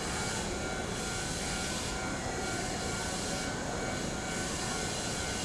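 Shinano Railway SR1 series electric trains standing at the platform with their on-board equipment running: a steady whirring hum with a few faint steady tones.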